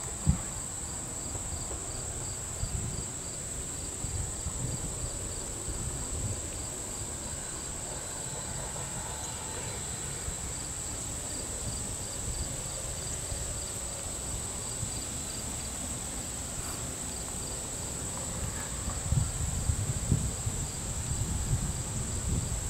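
Insects buzzing in a steady high drone, with a faint chirp repeating about three times a second. Under it runs a low rumble that grows louder and bumpier near the end.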